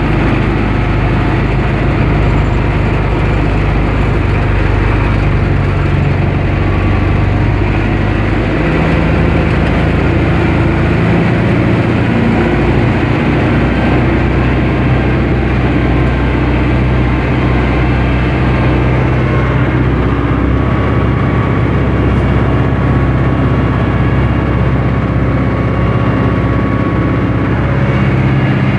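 Diesel engine of a Universal 651 tractor running steadily while driving, heard from inside the cab. The engine note changes a couple of times.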